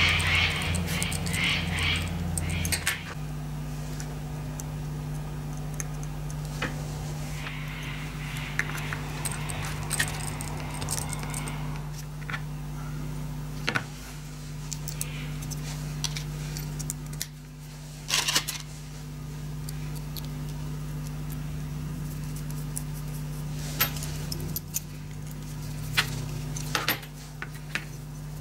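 Small metal parts being handled by hand: scattered clicks, taps and clinks, with a few scraping stretches, as an aluminium tool-height-setter block and a steel shank are fitted together. A steady low hum runs underneath.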